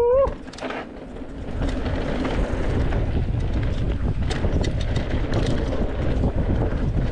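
Wind rushing over the camera microphone on a mountain bike moving along a trail, with scattered light rattles and clicks from the bike. The rush drops briefly about a second in, then comes back steady.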